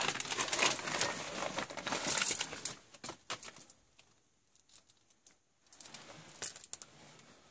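Rustling, crinkling and small clicks of parts and tools being handled during a circulator pump swap. The noise is dense for about the first three seconds, then mostly quiet with a few scattered clicks.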